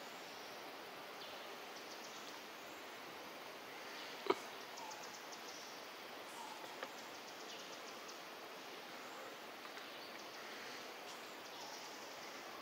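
Quiet outdoor background: a steady faint hiss with faint high chirping, broken by one sharp click about four seconds in and a smaller click a little before seven seconds.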